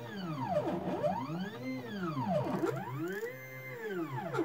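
Stepper motors of a desktop CNC mini mill whining as an axis is jogged: the pitch rises as the axis speeds up and falls as it slows to a stop, in about three moves, one of them holding a steady pitch briefly at full speed.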